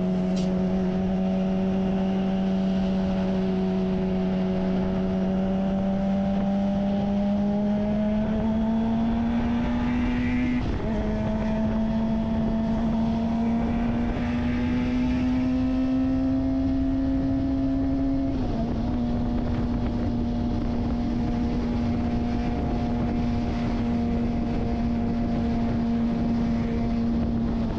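Kawasaki Ninja ZX-25R's 250 cc inline-four engine running steadily under way, a high hum that climbs slowly in pitch and drops sharply twice, about eleven and eighteen seconds in, as it shifts up a gear.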